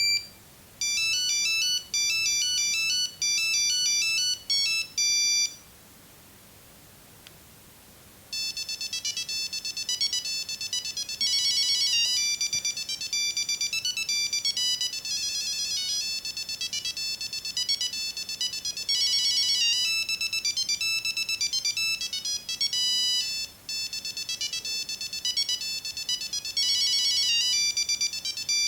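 Nokia 6310 mobile phone playing its built-in monophonic ringtones through its small speaker: one melody of quick beeping notes ends about five seconds in, and after a short pause a second, busier melody starts about eight seconds in.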